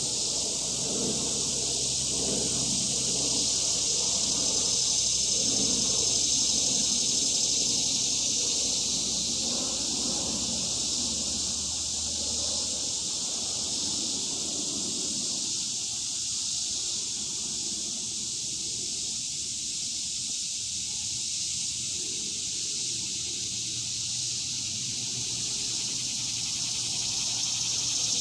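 Steady, high-pitched drone of a summer insect chorus, continuous and unchanging. A faint low hum sits under it for the first half and again near the end.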